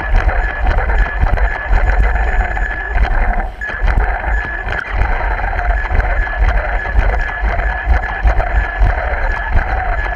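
Onboard sound of an RC car driving: a steady motor and gear whine over a heavy rumble of the chassis and tyres on concrete, heard through a microphone mounted on the car. It eases off briefly about three and a half seconds in.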